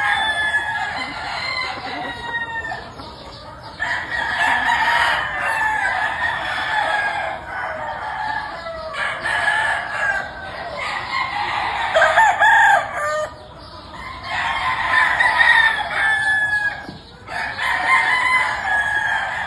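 Gamefowl roosters crowing one after another, the crows often overlapping, with some clucking.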